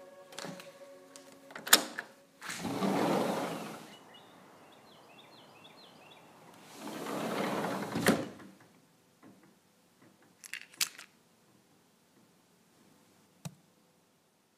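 Sliding glass patio door unlatched with a sharp click and rolled open, then rolled shut ending in a knock; faint birdsong comes in while it is open. A few light clicks follow, and a single sharp click at a wall light switch near the end.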